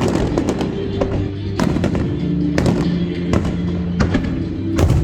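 Aerial fireworks going off in a series of sharp bangs, several a few seconds apart and some in quick clusters, over loud music playing along with the show.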